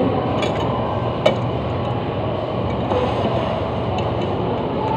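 Steady restaurant dining-room din with a low hum, broken by a single sharp clink about a second in and a few fainter clicks.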